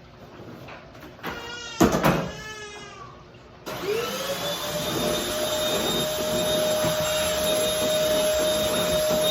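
A cat meows loudly. About four seconds in, a vacuum cleaner switches on: its motor whine rises in pitch as it spins up, then holds a steady tone over a rushing airflow.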